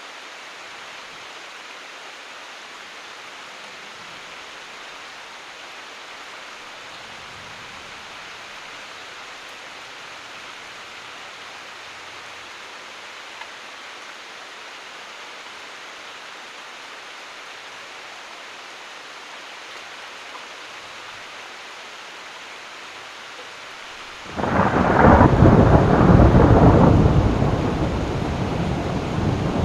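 Steady rain hissing, then a sudden loud clap of thunder breaks in near the end and rumbles on, swelling again just before it stops.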